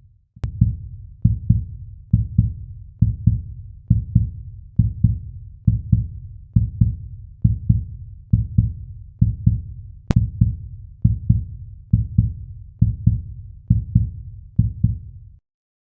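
Outro music: a deep, low drum beat struck in pairs like a heartbeat, about one pair a second, stopping shortly before the end. Two faint clicks come through, one near the start and one about ten seconds in.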